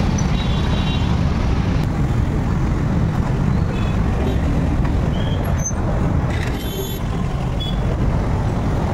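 Busy street traffic heard from a moving vehicle in the middle of it: a steady rumble of scooter, motorcycle and car engines with road noise. A few brief high beeps come through, in the first second and again around five and seven seconds in.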